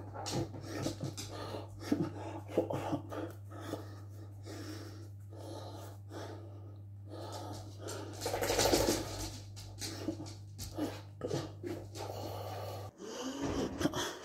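A man's breathy vocal sounds and breathing over a steady low hum. The hum cuts off about 13 seconds in, and pigeons coo near the end.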